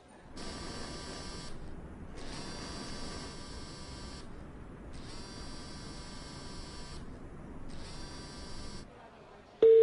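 A mobile phone buzzing in four pulses, about one, two, two and one second long with short gaps. Near the end a loud, steady single-pitch telephone ringback tone starts.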